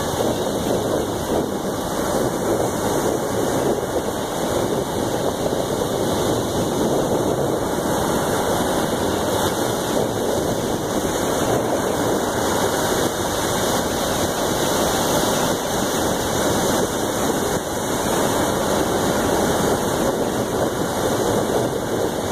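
Ocean surf breaking and washing over a stony beach: a steady, even rush of water noise.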